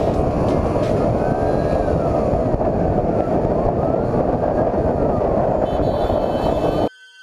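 A motorcycle riding fast through traffic, its engine buried under heavy wind rush on a helmet-mounted microphone, with a siren faintly wailing in slow rises and falls. Near the end the sound cuts off abruptly, leaving only a faint steady electronic tone.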